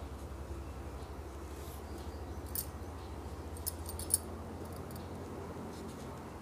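Light clicks and rustles of a crochet hook working wool yarn, with a few sharper ticks near the middle, over a steady low hum.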